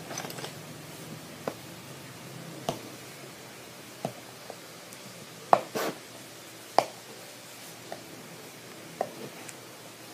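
Cardboard toy box being turned over and picked at to open it: scattered sharp taps and clicks of fingers and cardboard, about eight in all, the loudest a little past halfway.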